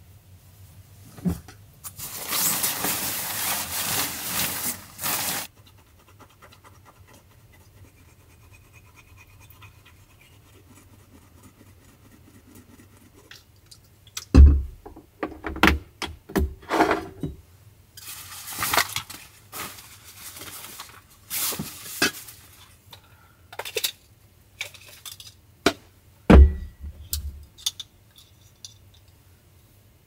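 Handling sounds: a loud rustle of fabric lasting about three seconds starts about two seconds in. From about halfway on come a string of clicks, taps and scrapes as small objects are picked up and set down on a wooden table.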